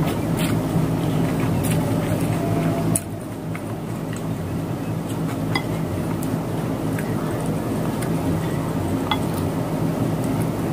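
Eating sounds picked up by a phone's built-in microphone, because the external mic was left unplugged: a steady low hum with a few sharp clicks and taps of wooden chopsticks and a wooden spoon against a ceramic bowl. The hum drops a little about three seconds in.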